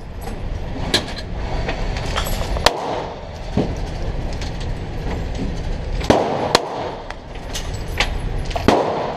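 Pistol shots fired one at a time at an uneven pace, about seven of them, each with a short echo off the walls of an indoor shooting range, over a steady low rumble.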